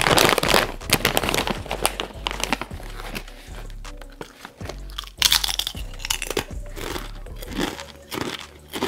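Foil-lined bag of Kettle Brand Parmesan Garlic potato chips crinkling as it is pulled open at the start, then crunchy bites and chewing of the thick kettle-cooked chips, with a loud crunch about five seconds in.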